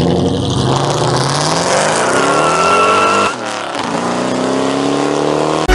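Supercharged 4.6-litre V8 of a 2003 Mustang SVT Cobra accelerating away under wide-open throttle. The engine note climbs with a high supercharger whine rising with it, drops at an upshift about three seconds in, then climbs again.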